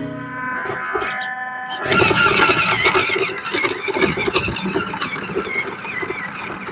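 WPL C24 1/16-scale RC truck's stock 180 brushed motor and gearbox whining as it drives, loud and harsh from about two seconds in.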